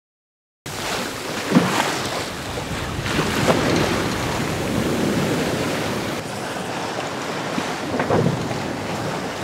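Wind on the microphone and sea water rushing past the hull of a Westsail sailboat under sail with the engine off, in a rising wind. It starts suddenly under a second in, with a few brief louder thuds about a second and a half, three and a half and eight seconds in.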